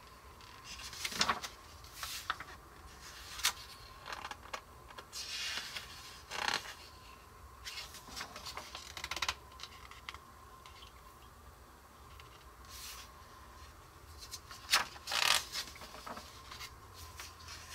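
Pages of a large paper instruction booklet being turned and smoothed flat by hand: soft, irregular paper rustles and brushing sounds every second or two, a few of them sharper.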